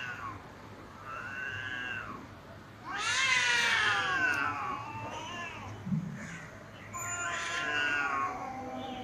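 Domestic cats caterwauling in a face-off: a series of long, wavering threat yowls, the loudest about three seconds in, the warning growl-yowling that comes before a cat fight.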